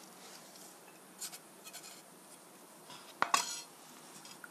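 A few faint light taps of a kitchen knife on a plastic cutting board, then one sharp clack a little over three seconds in as the knife is set down on the board.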